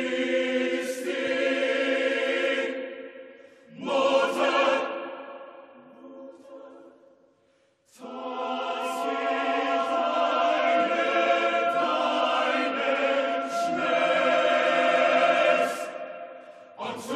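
Mixed chamber choir singing held chords. A sustained chord breaks off about three seconds in, a short loud chord follows and dies away into a brief silence, then a long held chord begins about eight seconds in.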